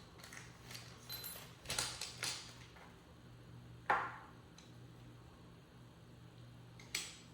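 Handling noises as camera accessories and their packaging are picked up and moved: a few scattered clicks and rustles, the sharpest about four seconds in and another near the end.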